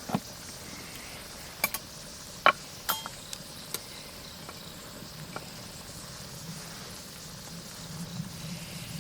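Wood fire crackling in a fire pit: a handful of sharp pops and snaps, most of them in the first few seconds, over a steady hiss.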